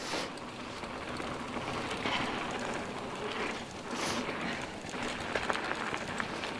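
Mountain bike rolling fast down a dirt trail: knobby tyres on packed dirt and dry leaves, with wind rushing on the microphone. The rush swells a few times, and there are a few light rattling clicks from the bike.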